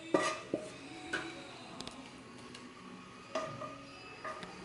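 A wooden spatula scraping and knocking against a frying pan as chopped tomato, pepper and olive sauce is tipped into a grill pan: a few short knocks and scrapes, the loudest just after the start, then smaller clinks.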